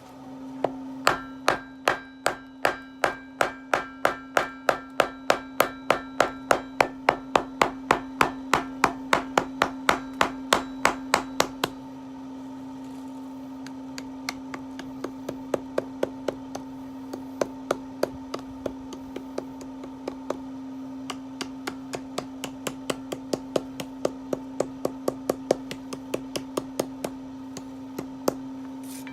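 Hammer blows on steel at the forge: a quick, even run of loud ringing strikes, about three to four a second. About twelve seconds in it changes to lighter, more irregular taps. A steady hum runs underneath.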